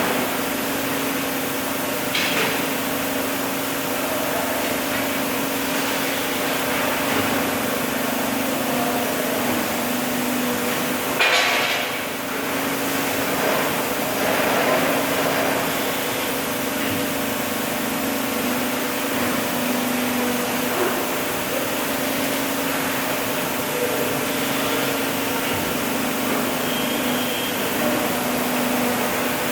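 CNC hydraulic press brake running, its pump giving a steady hum, with a light knock about two seconds in and a louder sharp knock about eleven seconds in.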